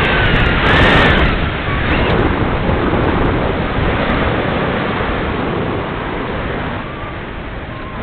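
Wind rushing over the microphone of a camera mounted on the wing of a Parkzone Radian Pro glider in flight, easing gradually as the glider comes down low.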